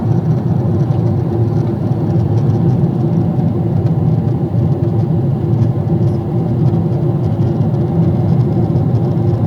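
Steady cabin drone of a Boeing 777-300ER in flight: its GE90-115B engines and the airflow along the fuselage, a loud, even low rumble with a faint steady hum above it.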